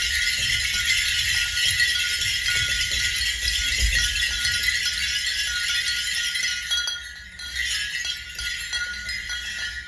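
Shaken jingling percussion making a dense, bright, continuous shimmer, which thins out about seven seconds in.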